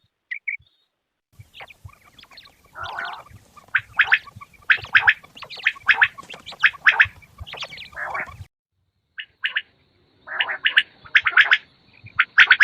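Quails calling: rapid series of short, sharp notes, with a brief break partway through. A faint steady high tone comes in during the second half.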